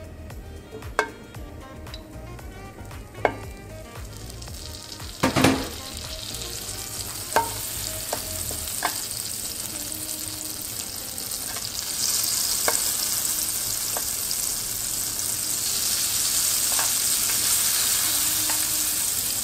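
Butter sizzling in a very hot nonstick frying pan. A few light chopstick clicks come first, then a loud sizzle as slices of unsalted butter drop in about five seconds in. The hiss grows louder as the butter melts and is pushed around with chopsticks, with occasional taps on the pan.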